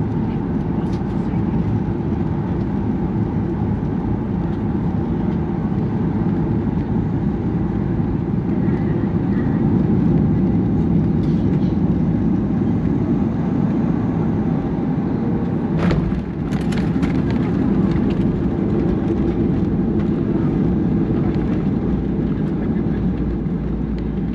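Jet airliner's steady engine and airflow noise heard inside the cabin on final approach. About 16 seconds in comes the thud of the wheels touching down on the runway, followed by a few bumps and a deeper rumble as the plane rolls out.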